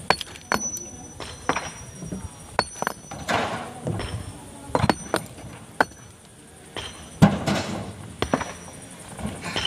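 Hammer blows on a steel chisel or wedge set in a large stone boulder: sharp metallic clinks at uneven intervals, about one a second, as the rock is split open along a crack.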